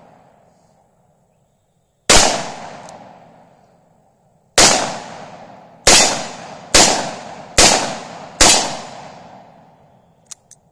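Six shots from a Taurus 627 Tracker .357 Magnum revolver, each trailing off over a second or two. The first two are about two and a half seconds apart, then four come quicker, roughly a second apart. Two faint clicks follow near the end.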